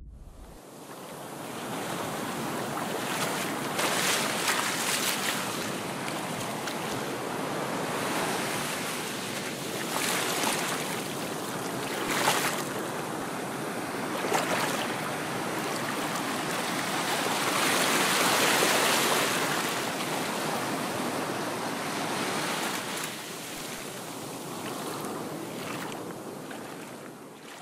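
Sea waves washing onto a beach shore: a continuous rush of surf that swells and eases every few seconds, fading out near the end.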